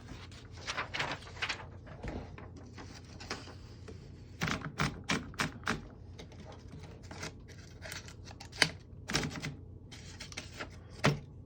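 Barr Universal portable typewriter being typed on: irregular sharp clacks of the keys striking, in short runs with pauses between them.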